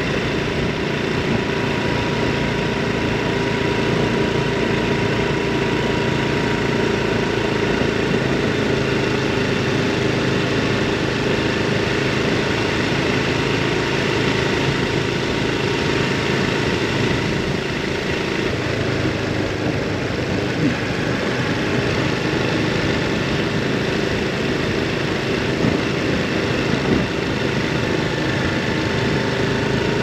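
Honda Super Cub 110 Pro's small single-cylinder four-stroke engine running at an even, unchanging pitch while riding.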